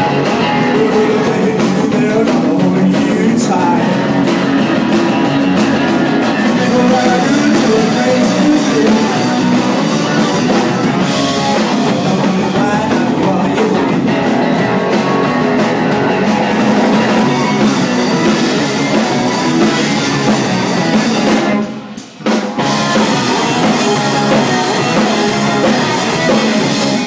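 Live garage rock band playing loud, with electric guitars and a drum kit driving the song. The band stops dead for a moment about four-fifths of the way through, then crashes back in.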